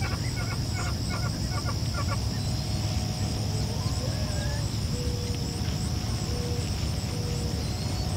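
Outdoor field sound: a steady low rumble of wind on the microphone under a constant high thin whine, with short bird chirps in the first two seconds and a few brief calls in the second half.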